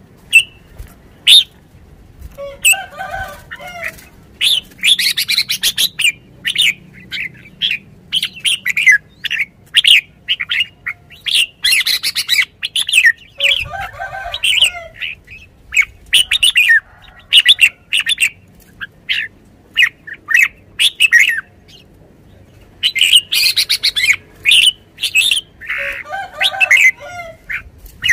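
Red-whiskered bulbul singing: bursts of quick, sharp whistled notes in repeated phrases, separated by short pauses, with a few lower, rougher notes among them.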